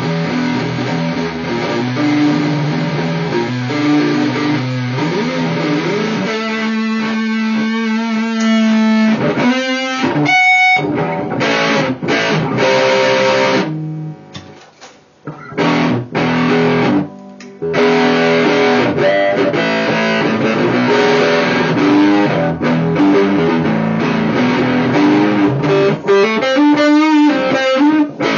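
Electric guitar played through a DIY MPSA13/LM386/TDA2003 distortion-overdrive pedal, with riffs and held distorted notes. The playing nearly stops for a moment about halfway through, then carries on.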